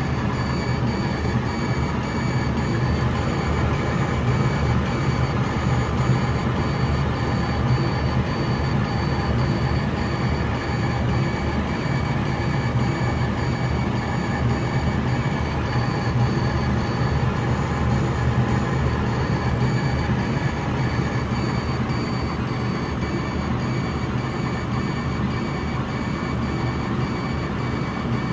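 A 50 W CO2 laser engraver raster-engraving cardboard: the machine runs with a steady hum and whir, while the laser head's motors sweep it rapidly back and forth. A faint high whine comes and goes with each pass.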